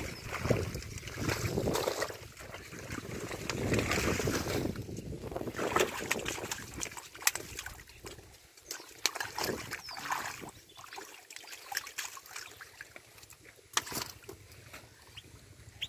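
Shallow muddy water sloshing and splashing as hands and feet churn through it, heaviest over the first half, then quieter with scattered sharp slaps.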